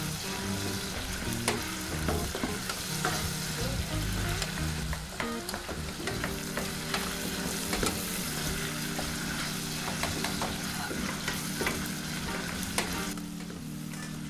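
Cherry tomatoes, garlic and vegetables sizzling as they fry in oil in a stainless steel pot, stirred with a wooden spoon that scrapes and knocks against the pot. The sizzle drops away about 13 seconds in.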